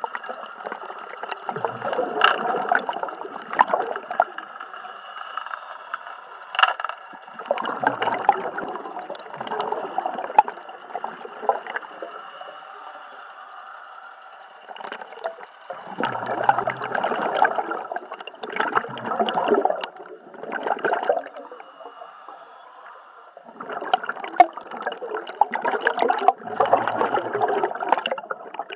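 Scuba diver's exhaled breath bubbling out of the regulator underwater, in four long bouts of gurgling several seconds apart, with quieter stretches between the breaths.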